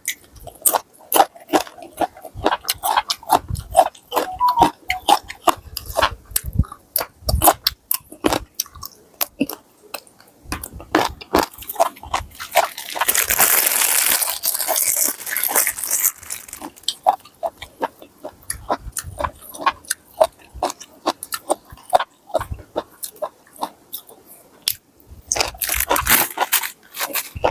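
Close-up eating sounds: repeated biting and chewing of crunchy food, such as pork cracklings and raw vegetables, with spicy pounded yardlong-bean salad. A longer, hissier stretch of noise comes about halfway through.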